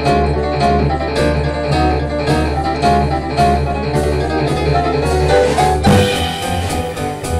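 Live jazz from a grand piano and a plucked double bass playing together, with quick piano notes over the bass. There is a loud accent about six seconds in.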